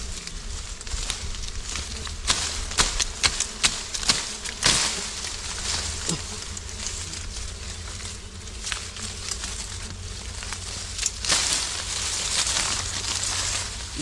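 Leafy branches rustling and shaking, with a run of sharp snaps and knocks between about two and five seconds in, as a wild honeybee comb is cut from a branch with a knife. A steady low rumble runs underneath.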